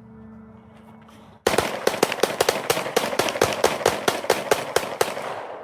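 Rapid gunfire: a string of about twenty shots at roughly five to six a second, starting about a second and a half in and stopping just before the end.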